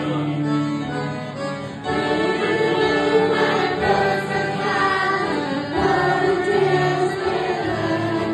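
A group of young children singing a Christian worship song together, with acoustic guitar accompaniment.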